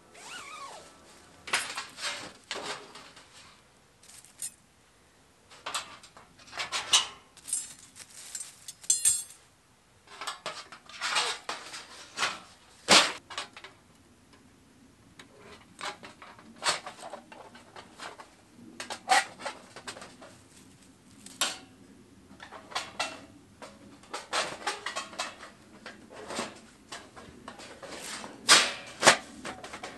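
Thin slotted steel plates and metal pins of a flat-pack fire pan clinking and clanking as they are fitted together by hand, in irregular short knocks with brief pauses between.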